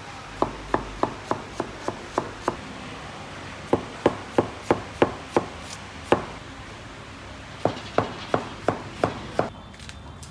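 Knife chopping food on a cutting board: sharp, even strokes about three a second in several runs with short pauses between them.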